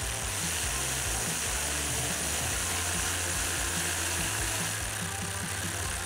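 Ratchet turning a T30 Torx socket, tightening a light's mounting bolt, with background music underneath.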